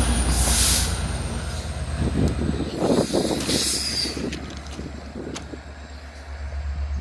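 GO Transit diesel-powered commuter train passing and moving away: a steady low diesel rumble with wheels clattering over the rails, a few sharp clicks from the rail joints, and the sound fading as the train recedes.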